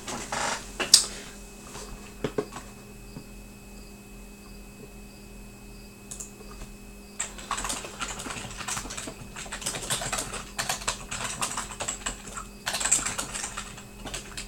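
Typing on a computer keyboard: a few scattered keystrokes, then a steady run of quick typing from about seven seconds in.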